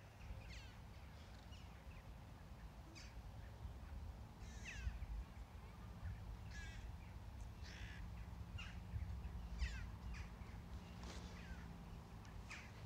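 A flock of crows cawing: a dozen or so short calls, some sliding in pitch, spread out and now and then overlapping.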